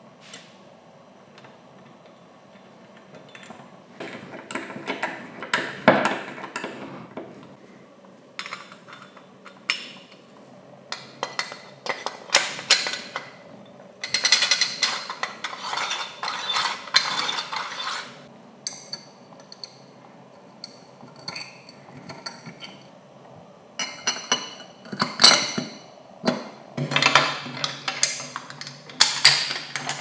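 Polished metal parts of an electric coffee grinder being fitted together by hand: scattered clicks, clinks and knocks of metal on metal, with quiet gaps between. About halfway through, a longer run of rubbing and rattling as the blade hub is worked into the chrome drum.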